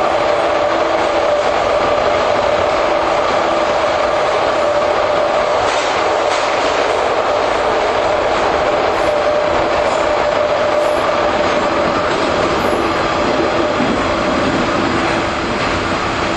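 JR 415 series electric multiple unit running at a steady speed. A loud, even rumble of wheels and track comes with a steady motor and gear whine, and a few faint wheel clicks come about six seconds in.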